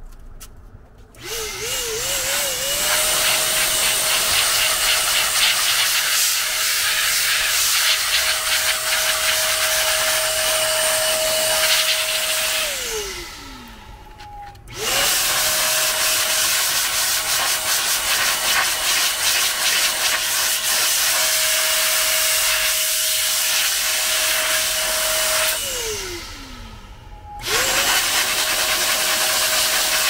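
Handheld electric air blower running in three runs, each a steady high motor whine over rushing air. It spins up about a second in, winds down with a falling whine around 12 and 25 seconds, and starts again near the end. It is blowing the last water off a washed plastic PC faceplate to dry it.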